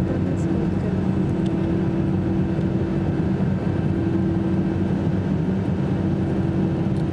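Airliner cabin noise while taxiing onto the runway: jet engines running steadily at low thrust, a constant low hum with no spool-up yet.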